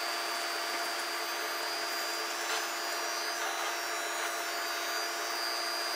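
Induction hot plate running under a cast iron skillet: its cooling fan blowing steadily, with a steady humming or buzzing and a faint high whine.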